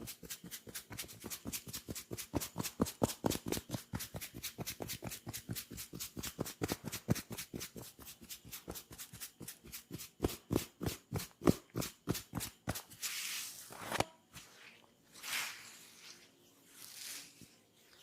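Tok Sen massage: a wooden mallet tapping a wooden wedge in a fast, even rhythm of sharp clicks, about six a second. After about thirteen seconds the tapping stops and gives way to a few slow swishing rubs with a single knock.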